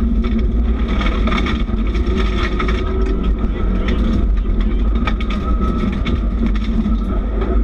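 A Subaru rally car's flat-four engine running hard on a gravel stage, heard from inside the cabin, with loose stones clicking and rattling against the underside.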